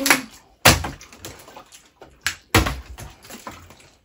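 About four sharp knocks a second or so apart, the thud of a plastic bottle being flipped and landing on a hard surface.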